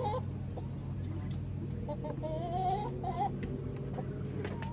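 Chickens calling, a few short rising clucks and one drawn-out call about two to three seconds in, over a steady low hum.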